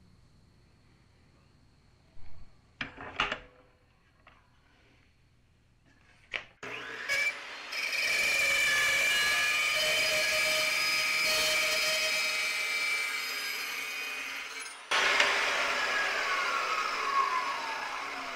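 Fein Slugger 14-inch carbide-tipped cold saw is started and cuts into 3-inch 6061 aluminum tube for a shallow trial cut on the marked line, a steady whining cut of about eight seconds. The motor then switches off and the blade winds down with a falling whine. A few light knocks from setting the saw come before the start.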